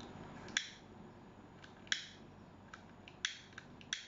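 A few short, sharp clicks at irregular intervals, about four clear ones and some fainter ones, over a quiet room background.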